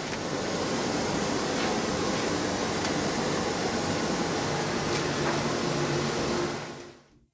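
Steady background noise of the factory floor: a broad hiss with a faint low hum and a few faint clicks. It fades out near the end.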